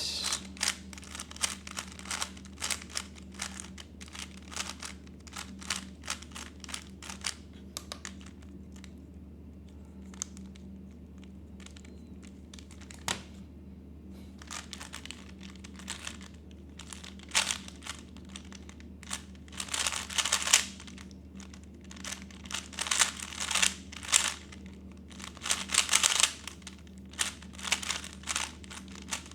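A 3x3 Rubik's speedcube being turned by hand, its plastic layers clicking and clattering in irregular flurries of quick turns, densest in the last third. A low steady hum runs underneath.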